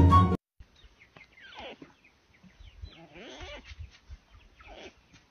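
Music cuts off abruptly about half a second in. Then an animal gives three calls about a second and a half apart, each falling in pitch, with faint rustling between them.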